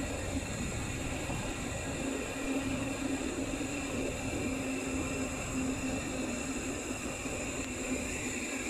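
Wind rushing over the microphone and tyre noise from a mountain bike rolling fast on asphalt, with a steady low hum running through it, strongest in the middle.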